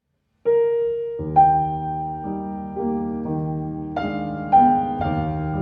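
Background music: piano notes played in a slow melody, starting about half a second in.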